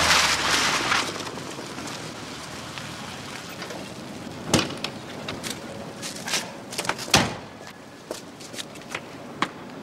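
BMW 3 Series saloon pulling up, its engine and tyre noise fading out within the first second. A car door then slams twice, about two and a half seconds apart, with lighter knocks and clicks in between.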